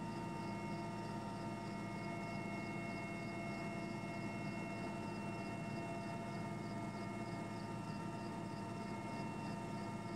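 Helicopter running steadily, a continuous drone with several held whining tones and a faint high chirp repeating about three times a second.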